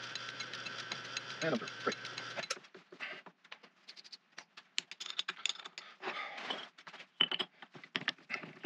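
1921 Dalton B4 metal lathe, driven by a flat leather belt, running with a steady whir, a fixed tone and regular light ticking, then cutting off suddenly about two and a half seconds in. After that come scattered metal clicks and clunks of the tailstock and tools being handled.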